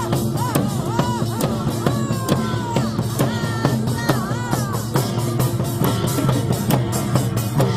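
Lively Korean street drumming: handheld drums (buk) beaten with sticks in a quick rhythm, with a wavering, sliding melody sounding over the beat.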